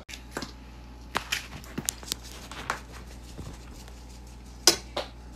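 Container of grated Parmesan cheese shaken over a plate of spaghetti: scattered light taps and clicks, with two sharper clicks near the end.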